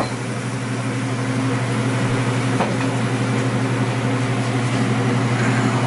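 A steady low electric motor hum, like a kitchen fan, over a pan of chicken stock, mushrooms and pearl onions simmering on the stove. A light clink comes about two and a half seconds in.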